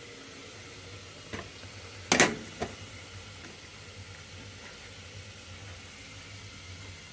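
Oil sizzling steadily as chicken fries in a pan, with a few sharp knocks about a second and a half and two seconds in, the one just past two seconds the loudest.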